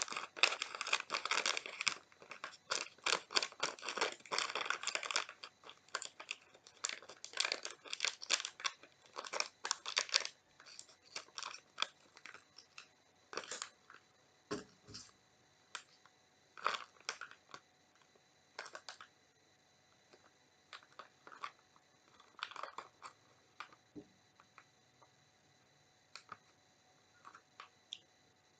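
A child biting and chewing Oriental Super Ring corn-ring snacks, with crisp, rapid crunches for about the first ten seconds, then sparser single crunches.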